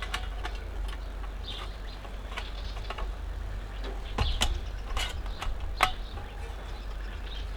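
A few sharp clicks and knocks as the back panel of a small camp cooker is fitted into place, most of them in the second half, over a steady low hum.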